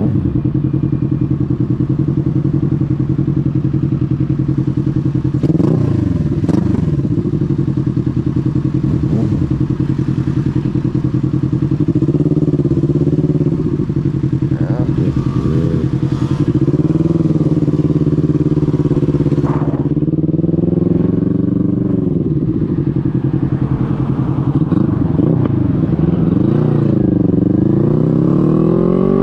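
Sport motorcycle engine idling steadily. The engine note swells and dips a few times as traffic passes. Near the end it revs up as the bike pulls away.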